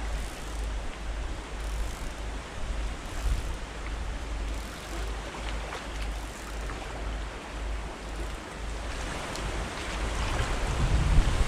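Strong gusty wind rumbling on the microphone, with water lapping and washing against the loch shore, the gusts growing stronger near the end.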